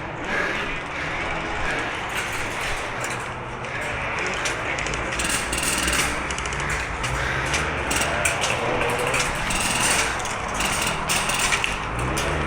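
Airsoft gunfire across the field: rattling bursts of electric airsoft rifles and sharp clicks of shots and BB hits over a steady low rumble.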